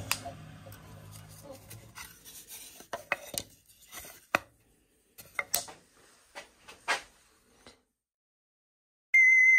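Record Power Sabre 350 bandsaw coasting down after a click, its motor hum fading out within a second and a half. Then a scatter of light knocks and clatters as cut pieces of wood are handled on the saw table. Near the end a loud, steady high electronic tone starts.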